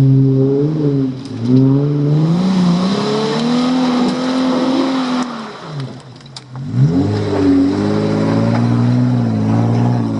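Jeep Wrangler engine revving up and down as it works along an off-road trail, dropping off briefly about six seconds in before picking up again.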